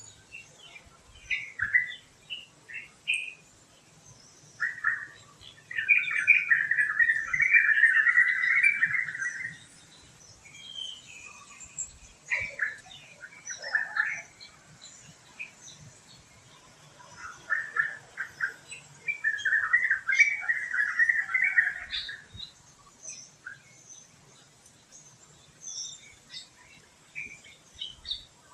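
Forest birds chirping and calling, with two long bouts of rapid chattering, one about six seconds in and another about twenty seconds in, among scattered short chirps.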